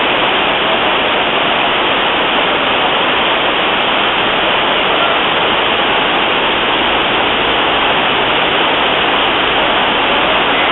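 Waterfall cascading down rock terraces into a pool: a steady, loud rush of water.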